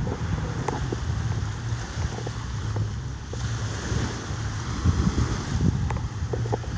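Wind buffeting the microphone in gusts, over the steady wash of surf on a beach.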